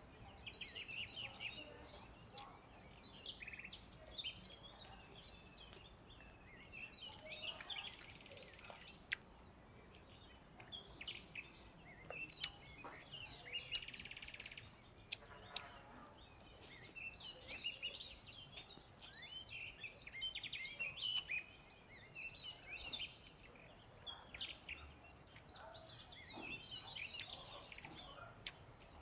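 Small birds chirping and trilling on and off over faint outdoor background noise, with a few sharp clicks.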